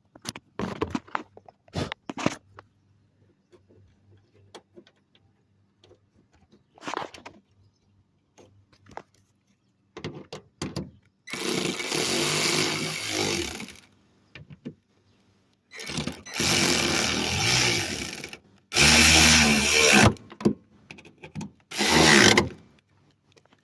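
A power tool runs in four bursts of one to two and a half seconds, driving bolts to fasten the sliding-door roller assembly back in place. A few sharp clicks from handling the tool and parts come before the bursts.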